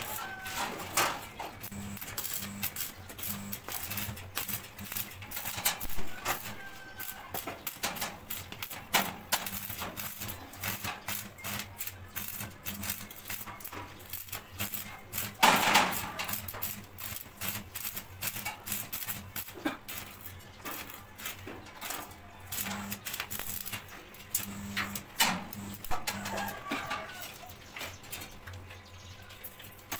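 Stick (arc) welding on a steel grill frame: the electrode arc crackling and sputtering in irregular runs, with a louder burst about halfway through. A low hum comes and goes underneath.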